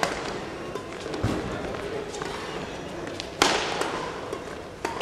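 Badminton rally: rackets striking the shuttlecock in sharp cracks that echo through a large hall. The loudest hit comes about three and a half seconds in, and there are two more quick hits near the end, with fainter ticks in between.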